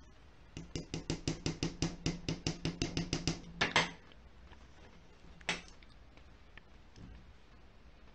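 Small scissors snipping quickly, a fast even run of clicks about six or seven a second for roughly three seconds. Then a couple of louder clicks close together, and one more click a little later.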